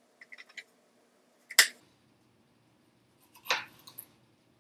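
Knife slicing a red bell pepper into thin strips on a cutting board: a few faint clicks at first, then single sharp knocks of the blade meeting the board, the loudest about a second and a half in and another about two seconds later.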